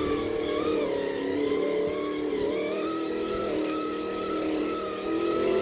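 Imitation car engine sound from an electronic engine-sound generator, running with small rises and dips in pitch.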